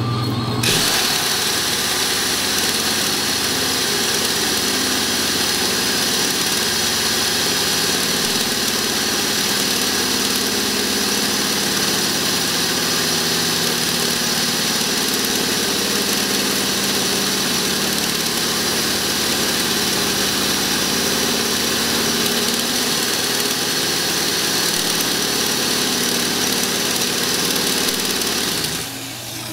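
Electric power tool running steadily as it cuts slowly into the steel shell of an air-conditioner compressor, a continuous grinding noise with a high, even whine. It starts about a second in and cuts off just before the end.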